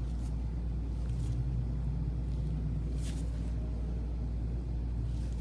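A steady low hum with a few faint, light clicks, the clearest about three seconds in.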